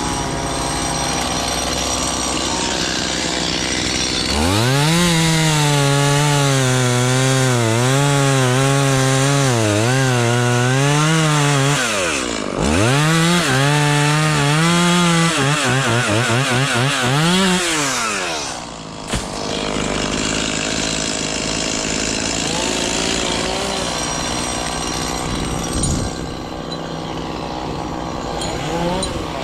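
Small engine revving up and down repeatedly. It starts about four seconds in, drops off briefly partway through, revs again and winds down near the end.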